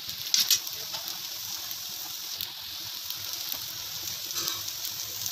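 Rice-and-potato tikkis shallow-frying in a little oil on a nonstick tawa: a steady sizzling hiss with a few crackles about half a second in.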